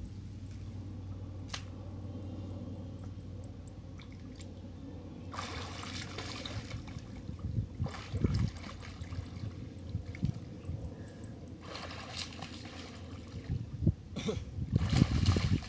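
Water splashing and sloshing as people wade and swim through a shallow, muddy river, coming in several irregular bursts after a quieter start, the loudest near the end.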